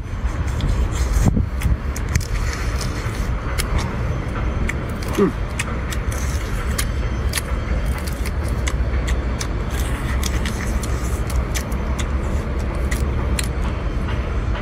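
Mantis shrimp shell being cracked and peeled by hand: a run of small sharp clicks and crackles over a steady low rumble.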